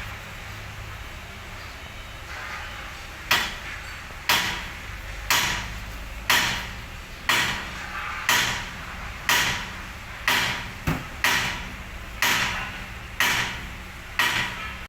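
A regular series of hammer-like knocks, about one a second, starting a few seconds in, each dying away quickly, over a low steady hum.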